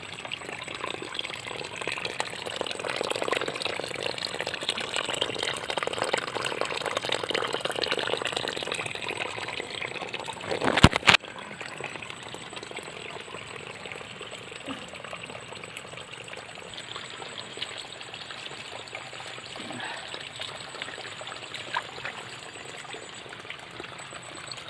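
Water of a small river running and trickling, louder for the first half. A sharp knock about eleven seconds in, after which the flow sounds quieter.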